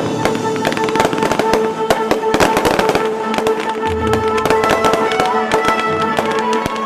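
Music with long held notes, under dense rapid crackling and popping.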